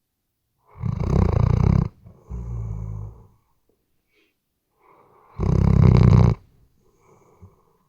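A sleeping weimaraner snoring: two loud, rattling snores about a second long, one near the start and one about five seconds in, each with a softer breath around it.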